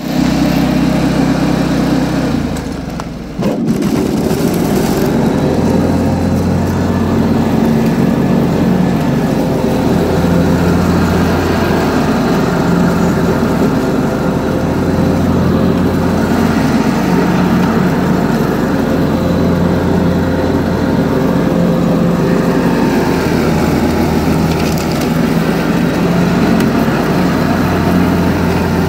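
John Deere 445 garden tractor's engine running steadily under load while its mower deck cuts wet, tall grass. The sound drops briefly about three seconds in, then comes back at full strength.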